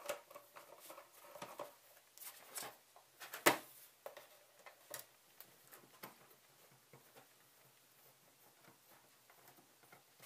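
Screwdriver working screws out of a plastic converter-box case, and the box being handled on a workbench: scattered light clicks and taps, with one sharper knock about three and a half seconds in, then quieter handling.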